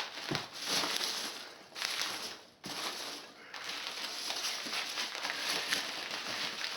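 Crinkling and rustling of bubble wrap and foam packing peanuts as hands dig into a packed cardboard box, with many small clicks and crackles.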